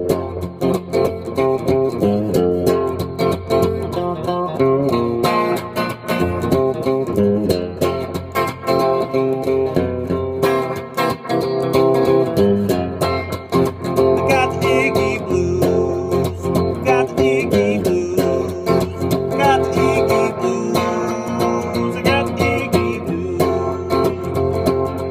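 Electric guitar playing a blues instrumental. From about halfway through, short high wavering tones come in over it every couple of seconds.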